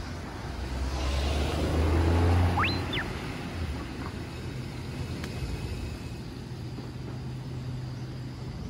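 A car passing on the road. Its engine and tyre noise swells to a peak about two seconds in, then fades. Just after the peak comes one brief, high, sweeping chirp.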